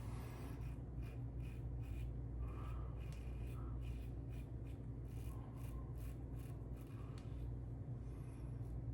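Short repeated scraping strokes of a Tatara Amakuni single-edge safety razor with a Kai Captain Titan blade cutting through lathered stubble on the upper lip.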